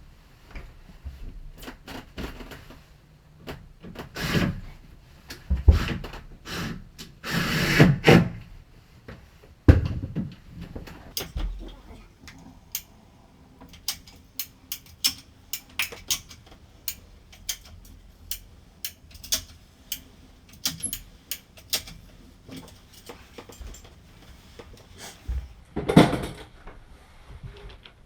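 Hand work on building materials: a run of irregular knocks and clicks, with a few longer scraping or rubbing sounds, loudest about 7 to 8 seconds in.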